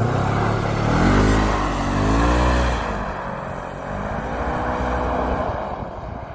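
Polaris RZR 900 Trail side-by-side's engine revving hard as it drives on the ice, the pitch climbing and dropping twice, then fading near the end as the machine pulls away.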